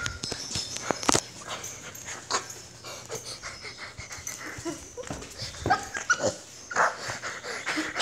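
A dog making short, high whimpering sounds a few times, amid knocks and rustles from the handheld camera.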